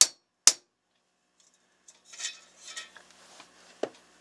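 Two sharp hammer taps, about half a second apart, on a thin steel part resting on a steel block, tapping out bends and dents; then light metallic clatter and scraping as the part is shifted on the block, with one more sharp click near the end.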